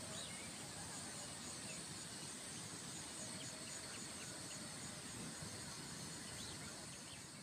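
Faint evening countryside ambience: a steady, high insect trill with a few short bird chirps over it.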